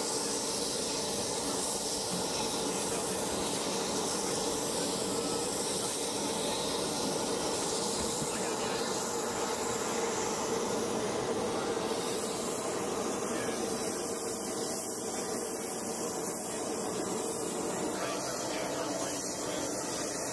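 Steady, even hiss of running machinery.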